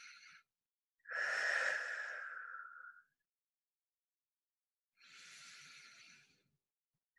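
A woman taking slow, deep breaths: a long audible exhale about a second in, then a softer inhale about five seconds in, with silence between.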